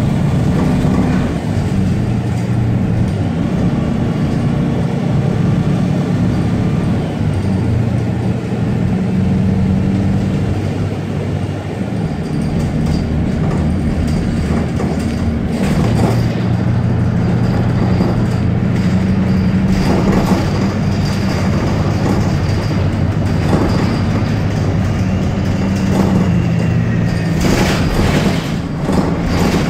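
Bus engine running and road noise heard from inside the cabin, the low engine hum shifting in pitch now and then, with a few knocks and rattles, the loudest near the end.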